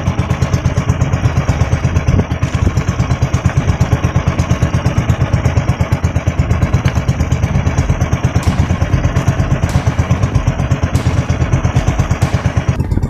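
Small gasoline engine of a motorized outrigger fishing boat (bangka) running steadily under way, with a fast, even pulsing beat. A few light clicks come in the second half.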